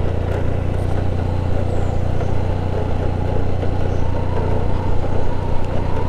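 Honda Scoopy belt-drive scooter's small single-cylinder engine running as it rides downhill, a steady drone with road noise. The rider holds some throttle to get engine braking from the CVT, which gives little of it.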